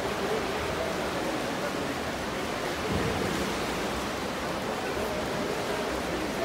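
Steady, echoing din of an indoor swimming pool hall: a continuous wash of splashing from swimmers' freestyle strokes and kicks, with faint voices in the background.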